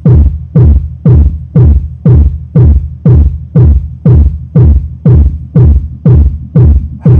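Homemade E-box subwoofer playing a bass-heavy electronic battle-mix track at high volume: a deep kick drum about twice a second, each hit dropping in pitch into the low bass.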